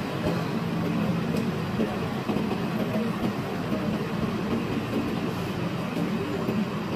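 Steady low hum and rumble of a Hong Kong double-decker tram and the street traffic around it, heard from the tram's upper deck.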